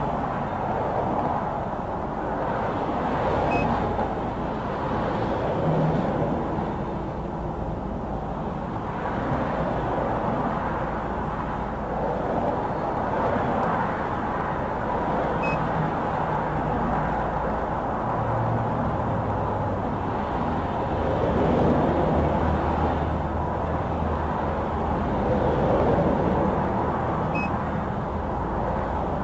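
Road traffic noise: a steady rush of passing vehicles, swelling and fading as cars go by. A faint short beep sounds three times, about twelve seconds apart.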